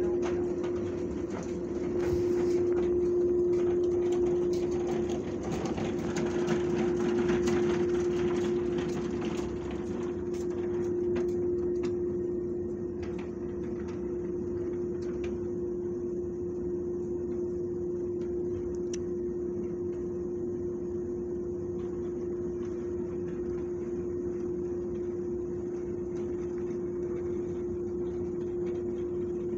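A steady machine hum holding one pitch, with a broader rushing noise over it for roughly the first twelve seconds that then dies down; a few faint clicks.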